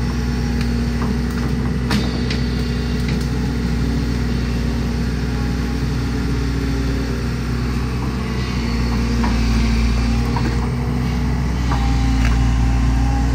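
Kobelco tracked excavator's diesel engine running steadily as the boom and bucket work through brush, with one sharp knock about two seconds in.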